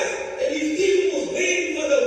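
A voice in a sung, chant-like delivery, with music underneath.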